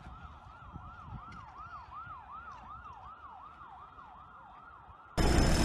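Emergency vehicle siren on a fast yelp, fairly faint, its pitch sweeping up and down about two and a half times a second. It cuts off abruptly near the end, when a much louder wash of noise takes over.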